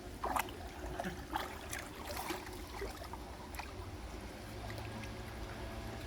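Water of a mountain stream running, with a few short splashes in the first half.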